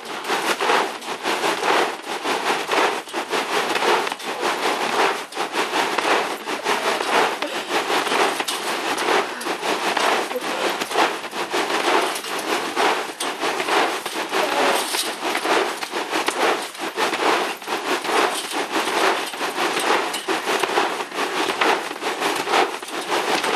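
Hailstones clattering and crackling on a taut trampoline mat as a person bounces on it. The ice rattles up in a dense spray of clicks that swells with each bounce.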